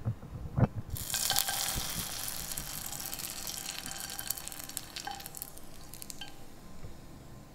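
Seaweed rice-paper snack deep-frying in hot oil: a loud crackling sizzle starts about a second in and dies down gradually until it stops around six seconds in. A short low knock comes just before the sizzle.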